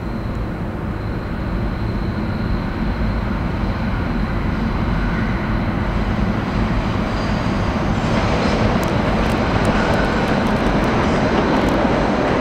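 New York City subway train approaching through the tunnel toward the platform, its rumble growing steadily louder. From about two-thirds of the way in, more wheel and rail noise comes in as it nears.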